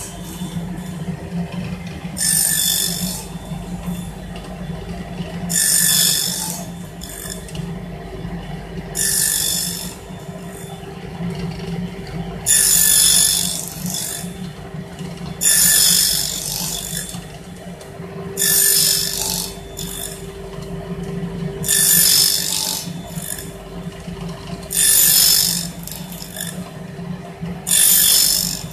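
Table saw running with a steady hum while its blade cuts into a clamped pine board in short passes, a loud high-pitched cutting burst about every three seconds, nine in all.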